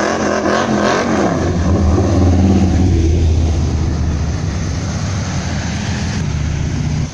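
A muscle car's engine revving, then accelerating hard past. It is loudest about two seconds in and fades as the car pulls away.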